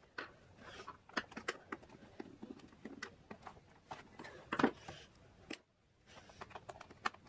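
Irregular small clicks, taps and scrapes of a screwdriver and hands working on the plastic underside of a Toshiba Portégé R700 laptop, with a louder knock about four and a half seconds in.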